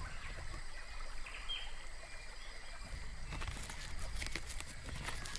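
Faint rainforest ambience: a low, steady hiss of the forest with a few short, high chirps.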